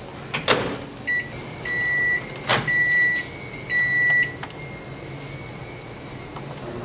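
Microwave oven: a door knock, a short beep, then three long beeps about a second apart. The three long beeps are the end-of-cycle signal, sounding as the heated cup of noodles is taken out. A faint high whine runs underneath.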